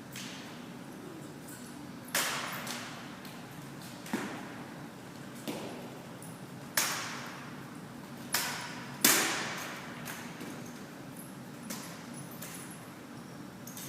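Drill rifles being slapped, caught and struck against the floor in a rifle drill routine: about seven sharp claps and knocks at irregular intervals, each trailing off in echo.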